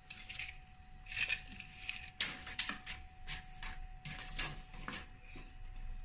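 Irregular metallic clinks, taps and scrapes of hand-tool work inside a refrigerator's freezer compartment as a new evaporator plate is fitted, with a sharp clink about two seconds in as the loudest.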